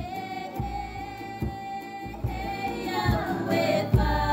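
Background music: a singing voice holding long notes over a steady drum beat.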